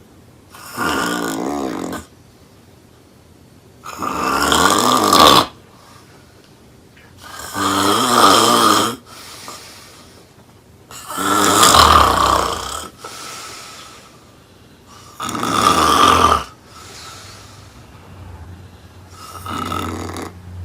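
Woman snoring loudly: six snores at a regular pace, about one every four seconds, each a second or two long with quiet between, the last one fainter.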